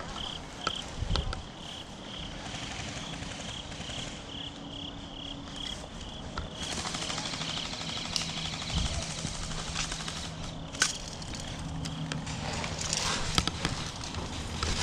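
Night insects chirping in an even pulsing rhythm, about three chirps a second, fading out past the middle. Partway through, a rustling hiss rises, with a few sharp clicks.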